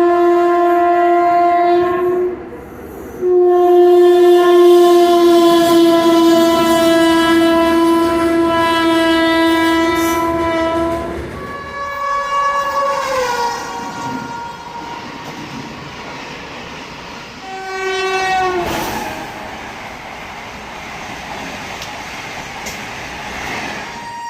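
Indian Railways locomotive horn sounding repeatedly over the running noise of a train. There is a short blast, then a long steady blast of about eight seconds, then two shorter blasts later on that drop in pitch.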